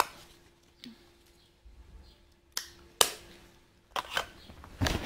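Plastic makeup compacts and cases being handled, clicking and knocking together. There is a sharp click at the start, single clicks about two and a half and three seconds in, then a quicker run of clicks and taps near the end.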